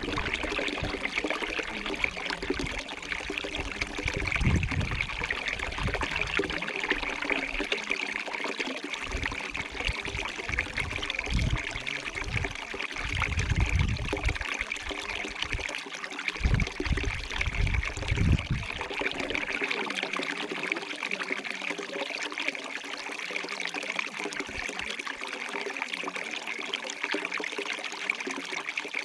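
A small stream trickling and babbling steadily, with irregular low rumbles through roughly the first two-thirds.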